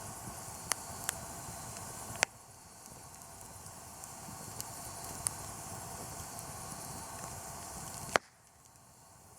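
Wood campfire crackling, with scattered sharp pops and two loud snaps, about two seconds in and near the end.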